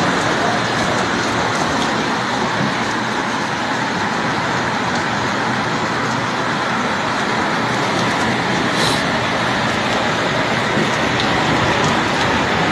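Steady hiss of a heavy downpour of rain.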